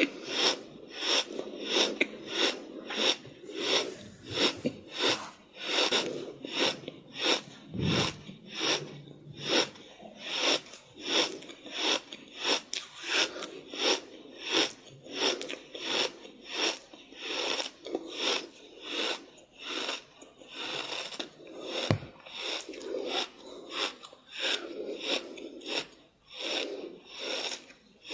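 Rapid heavy breathing: short rasping puffs of breath at a steady rate of about two a second.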